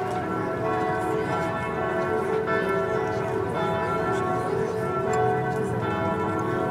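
Church bells pealing, several bells ringing together so their tones overlap in a continuous wash.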